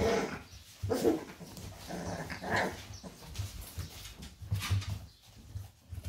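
Young puppies whimpering and squeaking in short bursts, the loudest in the first three seconds.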